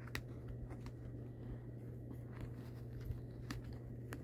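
Light handling noise: a few faint clicks and taps over a steady low hum.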